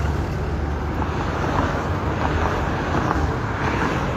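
Wind buffeting the microphone, a steady rumbling noise with no clear beginning or end.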